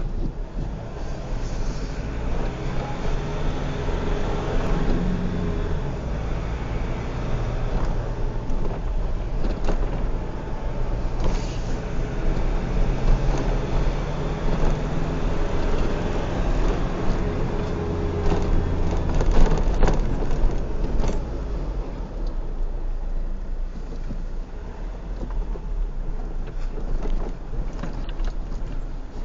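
Vehicle engine running while driving, its pitch rising and falling several times as it speeds up and eases off, over a constant low road rumble.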